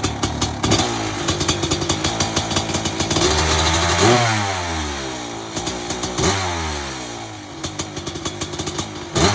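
Honda CR250 two-stroke single-cylinder dirt bike engine running and being blipped, revving up sharply three times and falling away after each. The bike has sat in storage for two years, and the owner says its carburettor needs a good cleaning.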